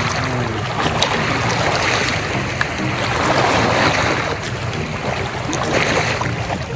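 Sea surf washing over shoreline rocks, swelling and easing, under background music with low bass notes.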